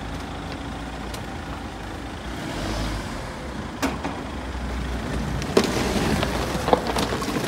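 Mahindra Thar's turbo-petrol engine running at low revs as the SUV creeps over loose gravel ballast, with a few sharp clicks of stones under the tyres, the loudest about four seconds in.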